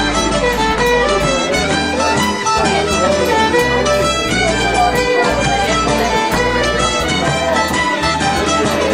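Traditional Celtic tune played on fiddle, with a bodhrán frame drum beating a steady rhythm along with it.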